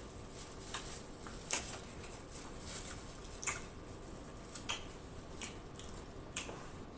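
Close-miked eating of loaded nachos: chewing with scattered short, sharp mouth clicks and smacks, roughly one a second.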